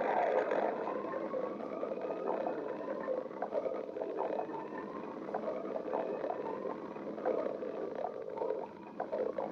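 A person's stomach growling: continuous gurgling with short bubbly pops and drawn-out tones that slide up and down in pitch.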